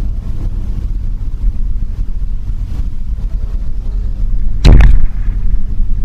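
A Howard Hill longbow being shot: one sharp, loud thump of the string's release about four and a half seconds in, over a steady low rumble.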